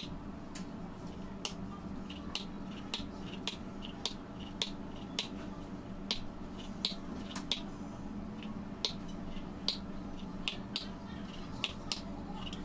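A small metal heart-shaped cutter pressed again and again through rolled fondant onto a granite countertop, giving a sharp click with each cut, about one to two a second.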